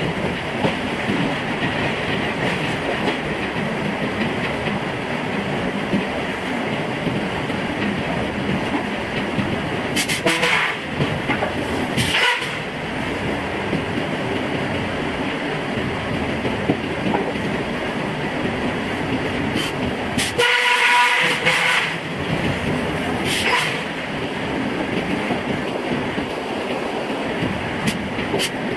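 Forging machinery clattering steadily, with a few sharp metallic strikes and a brief ringing tone about twenty seconds in.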